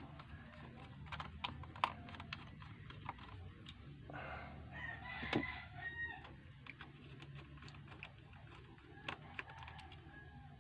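Scattered small clicks and taps of a screwdriver and fingers working the screws and plastic housing around a JBL portable speaker's driver. A rooster crows once in the background, lasting about two seconds, from about four seconds in.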